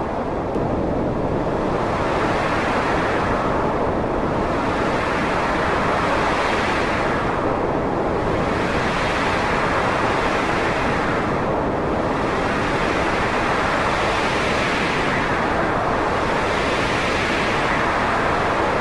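Wind blowing in a steady rush, swelling into gusts about every four seconds.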